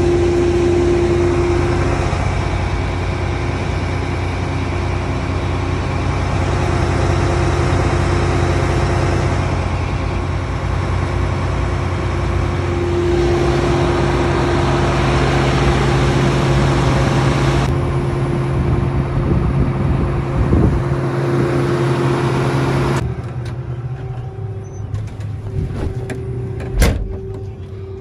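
John Deere S660 combine's diesel engine running steadily with a constant hum. The sound drops noticeably about 23 seconds in, and a single sharp knock comes near the end.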